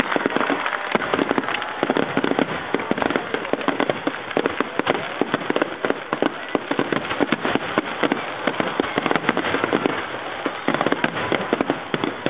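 Fireworks finale barrage: aerial shells bursting one after another without pause, with a dense run of crackling pops throughout.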